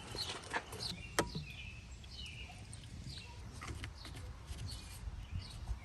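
Faint bird chirps over a low steady background rumble, with a few small clicks and one sharp click about a second in.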